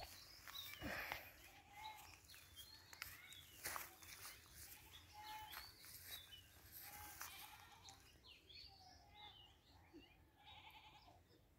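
Faint outdoor ambience, close to silence, with short animal calls that recur every second or two.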